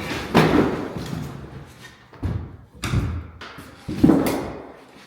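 Four heavy thumps and knocks spread over a few seconds, from furnace parts and equipment being handled and set down.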